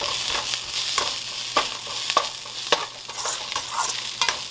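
Chopped onions with ginger-garlic paste sizzling in a stainless steel kadai while a metal slotted spatula stirs them. The spatula scrapes and knocks against the pan about every half second.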